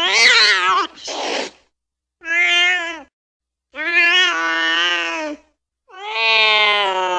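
Angry cat yowling: a wavering, shaky call, then a short hiss, then three drawn-out yowls, each longer than the one before, the last still going at the end.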